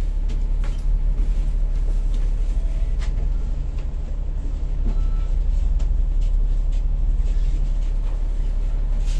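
Double-decker bus engine running with a steady low drone, heard from inside the upper deck, with a few light rattles and clicks from the bus body.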